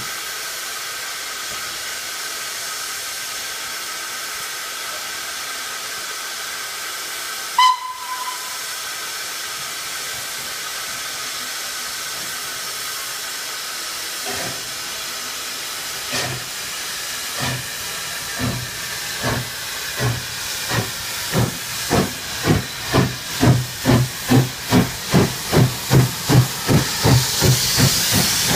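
Steam locomotive hissing steadily with steam, with one short whistle toot about eight seconds in. About halfway through it pulls away: its exhaust chuffs start slow and quicken to about two a second, growing louder as it passes close by.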